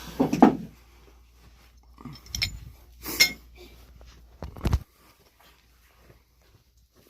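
Scattered knocks and a sharp metallic clink as a person crawls through a cramped crawl space, ending in a dull thump a little under five seconds in.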